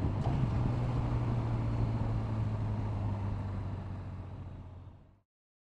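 Honda VFR1200X Crosstourer's 1200cc V4 engine running steadily on the move, with wind and road noise. The sound fades away over the last couple of seconds and then stops.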